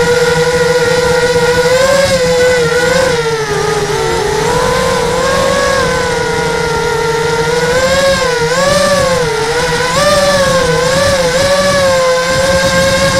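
Small electric multirotor drone's motors and propellers whining, heard from its onboard camera. The pitch holds steady, then wobbles up and down with throttle corrections, over a rushing noise.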